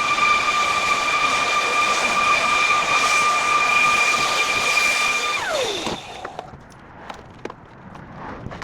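A power tool's motor running at a steady high whine, then switched off about five seconds in, its pitch falling quickly as it spins down, followed by a few light clicks.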